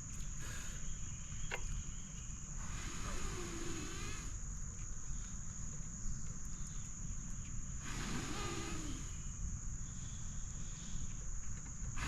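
Steady high-pitched chirring of insects, with two long breathy blows about three and eight seconds in as a smouldering tinder bundle is blown on to bring it to flame. A single sharp click comes about a second and a half in.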